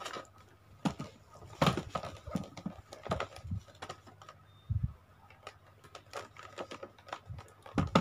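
Boxed action figures being handled: irregular taps, knocks and clicks of their cardboard-and-plastic window packaging, over a faint steady hum.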